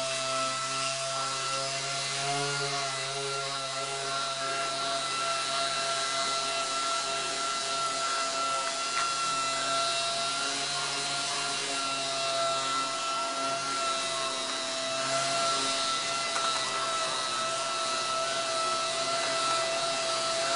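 Pneumatic 6-inch orbital sander running at speed with a foam-backed 100-grit aluminium-oxide disc, scuff-sanding carbon fibre: a steady high whine over an even hiss of air and abrasion.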